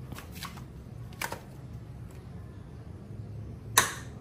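Metal clicks and clanks of a T-handle socket wrench being worked on a motorcycle frame bolt: a few light clicks, a sharper one about a second in, and a loud clank with a short ring near the end, over a low steady hum.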